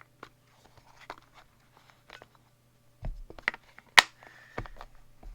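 Clicks and knocks of hard objects being handled and set down while sharpening stones are swapped, the Shapton 1000 giving way to the Shapton 5000. The knocks grow louder from about three seconds in, with one sharp clack about four seconds in the loudest.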